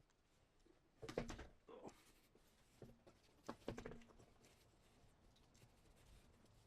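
A few faint knocks and clunks in two short clusters, about a second in and again around three to four seconds in: alloy wheels being handled and loaded into a car.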